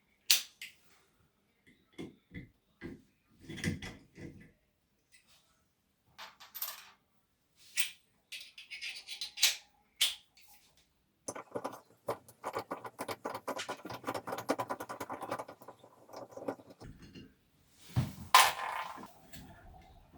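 Tools and metal parts being handled while a shower valve is taken apart: scattered clicks and knocks, then a rapid rattling run of about five seconds starting about 11 s in, and a sharp knock near the end.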